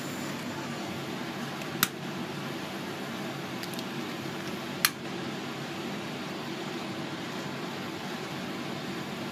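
Steady rushing of a gas flame burning, with two sharp clicks about three seconds apart.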